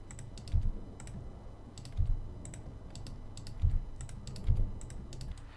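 Computer keyboard and mouse clicks at an irregular pace, with four dull low thumps on the desk, the loudest sounds.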